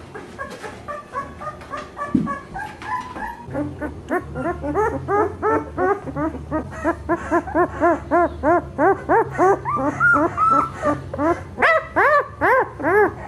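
Two-week-old pit bull puppy crying: a long run of short, high, rising-and-falling squeals, about three a second, getting louder toward the end.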